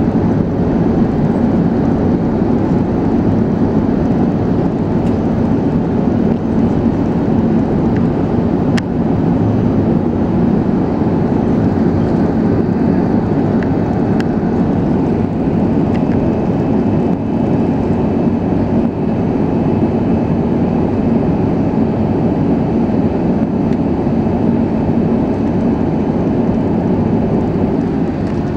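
Airbus A380 cabin noise during the climb after takeoff: a steady low rush of engine and airflow noise from the Engine Alliance GP7200 turbofans, heard from a window seat over the wing.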